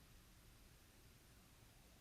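Near silence: a faint steady hiss of room tone.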